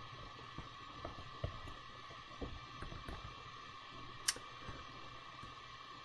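Faint, scattered taps and clicks of computer input while drawing in a digital painting program, with one sharper click about four seconds in. A steady faint hum runs underneath.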